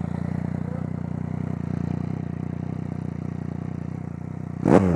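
Motorcycle engine idling steadily, then a sharp throttle blip near the end, revving up quickly and dropping back.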